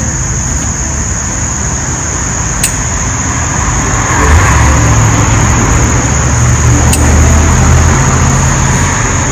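A motor vehicle going past: a low rumble with a tyre-like hiss that swells about four seconds in and eases off near the end, over a steady high-pitched tone.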